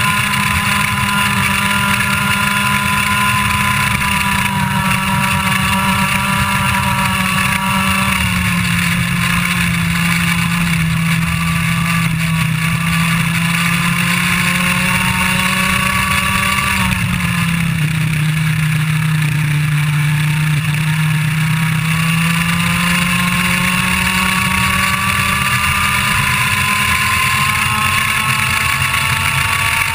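IAME Leopard 125cc two-stroke kart engine running hard at racing speed, heard onboard. The revs drop about a quarter of the way in and again just past halfway, then climb steadily through the last third as the kart accelerates.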